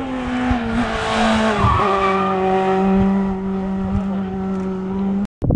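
Rally car engine passing close at speed, its note dropping in steps over the first two seconds and then holding steady as the car goes by, with tyre noise from the road. The sound cuts off suddenly near the end.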